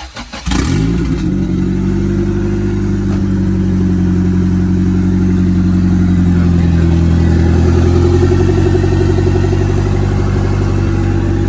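Honda B-series four-cylinder engine, freshly fitted with a turbo kit, cranks briefly and catches about half a second in on its first start. It then runs at a steady idle.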